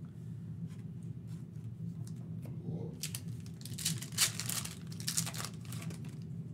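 Foil trading-card pack wrapper being torn open by hand: a few light clicks of handling, then, about three seconds in, some three seconds of loud crinkling and tearing.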